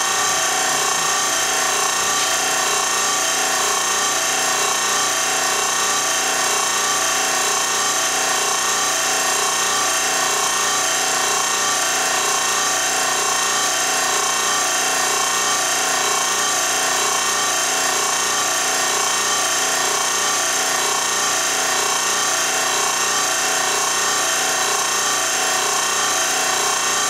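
A motor-driven machine running steadily, an even whirring hum that does not change.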